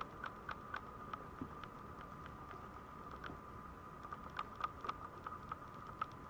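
Maltese puppies shuffling and nuzzling one another: faint, irregular small clicks and taps, bunched in quick clusters, over a steady faint high hum.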